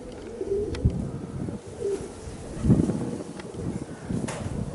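Domestic pigeons cooing, with strong wind buffeting the microphone in irregular bursts, the loudest about a second and nearly three seconds in.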